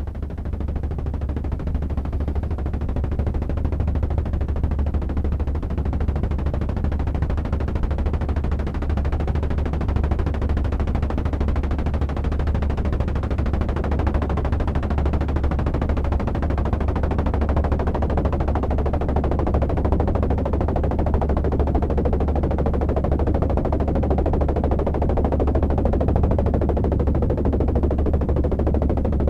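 Synthesized helicopter effect from a modular synthesizer: filtered pink noise from a Q110 noise generator shaped into a rotor 'chopper sound', over a steady low hum from two oscillators standing in for the engine. It swells a little over the first few seconds, then holds steady.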